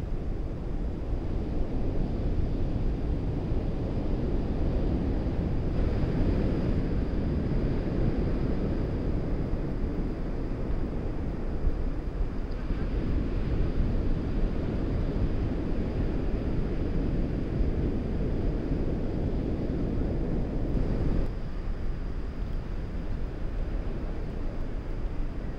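Wind blowing across the microphone: a steady low noise that eases a little near the end.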